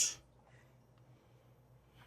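A voice cutting off at the very start, then near silence: room tone.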